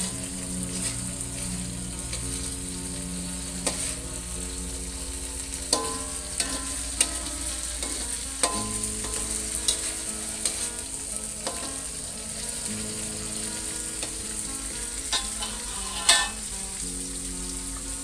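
Spice paste sizzling in hot oil in a steel wok while a metal spatula stirs it, scraping and clinking against the pan now and then, with the loudest clink near the end. The paste is being sautéed until its aroma comes out.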